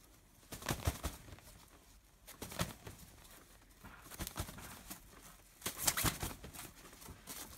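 A rooster flapping his wings in several short, noisy bursts as he balances on a swaying swing bar.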